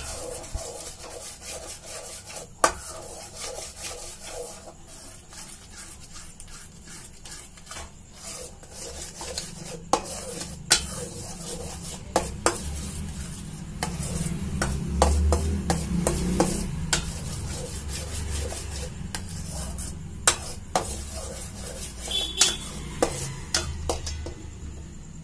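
A spoon stirring a thick milk-and-ghee mixture in a stainless steel pan, with irregular scrapes and knocks of the spoon against the metal over a low rumble.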